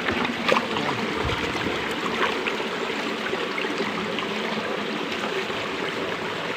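Shallow rocky creek water running steadily, with a few faint knocks.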